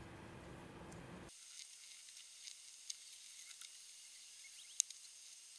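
Faint rustling crackle of nitrile-gloved hands pressing and working resin-wetted carbon fibre cloth into a mould, with a few small clicks. A low background hum cuts off abruptly about a second in.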